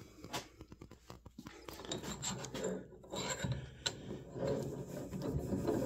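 Doyle 4-1/2-inch ductile iron bench vise being worked by its handle, the greased Acme screw turning and the movable jaw sliding with a rough rubbing, scraping sound. Quick light clicks come in the first second or so.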